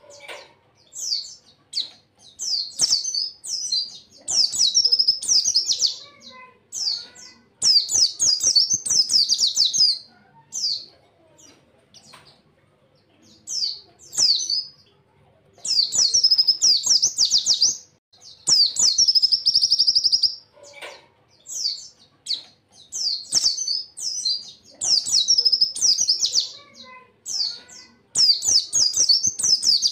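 Pleci (white-eye) singing: bursts of rapid, high twittering song, each phrase lasting one to three seconds, with short pauses between them.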